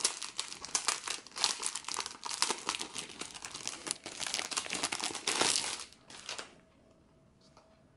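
Clear plastic sleeve crinkling as a spiral-bound desk calendar is handled and slid out of it: a dense run of quick crackles that stops about six seconds in.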